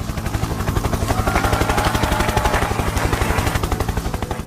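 Rapid, even mechanical chopping at many beats a second, with a faint wavering tone in the middle of it, easing off a little near the end.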